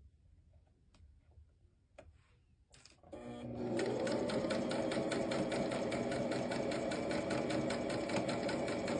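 Small Brother sewing machine starting up about three seconds in, speeding up over a second and then running steadily, stitching rapidly through a shirt seam. A few light clicks come before it starts.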